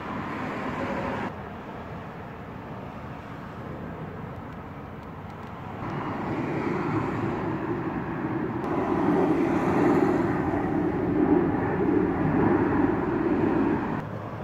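Outdoor background noise with a distant engine rumble that swells about six seconds in and drops away shortly before the end.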